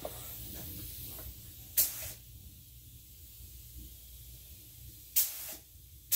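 LVLP gravity-feed spray gun (SprayIt 33000) hissing as it sprays paint. There is a steady hiss for about two seconds ending in a louder blast, then two more short blasts near the end as the trigger is pulled again.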